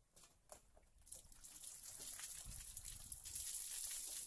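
Water poured from a bucket onto a fiberglass boat hull in its mold: a splashing, gushing hiss that builds from about a second in and stops near the end.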